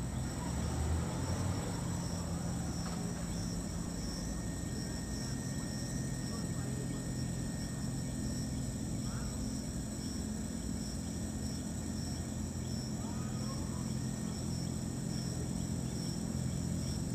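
Night chorus of crickets, a steady high trilling, over a low steady hum.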